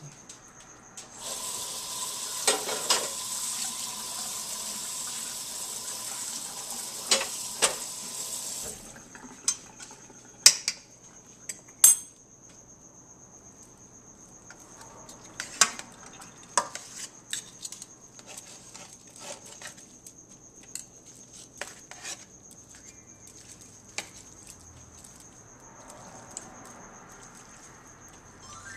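Metal knife and fork clinking and scraping against a stainless steel pot as cooked pulled pork is cut up, in scattered sharp clinks. About a second in, a steady hiss starts, runs for about seven seconds and cuts off sharply.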